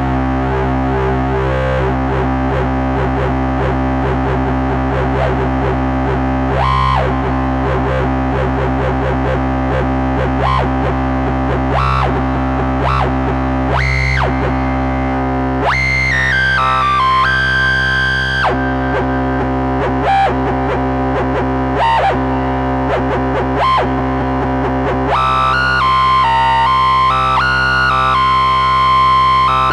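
Moog Subsequent 37 analog synthesizer played duophonically with hard sync: a steady low note is held under a fast-changing upper line whose harmonics sweep with each note. With glide switched off, the note changes click. From about halfway, the upper notes step between held, higher tones.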